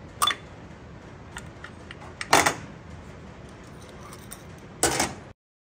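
Metal hand tools clicking and clinking on a TH350 transmission's accumulator cover and case as the cover is pried out and the accumulator pushed in: a few sharp metallic clicks with small ticks between, the loudest about two seconds in.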